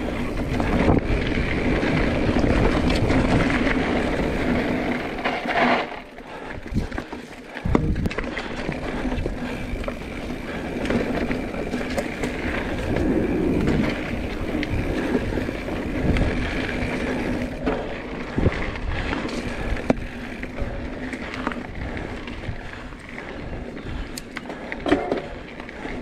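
Mountain bike riding over a dirt singletrack: continuous tyre and trail noise with frequent knocks and rattles over bumps. It eases off briefly about six seconds in.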